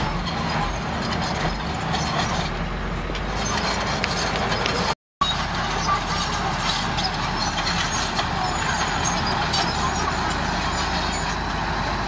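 Diesel engine of a Komatsu D31A crawler bulldozer running steadily while it pushes rock fill, with a brief complete dropout in the sound about five seconds in.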